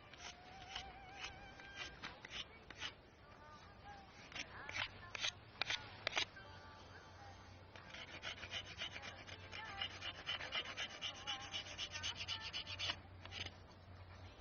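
Hand-tool scraping strokes, a rasp or abrasive rubbed back and forth on wood. The strokes come singly and irregularly at first, then turn quick and rhythmic for several seconds in the second half.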